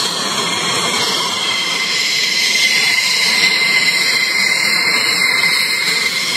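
Twin jet engines of an F-15K Slam Eagle running on the ground at idle: a steady roar with a high, steady whine over it.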